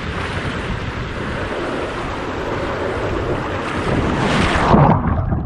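Water rushing, mixed with wind buffeting the microphone: a loud, steady rush that swells towards the end.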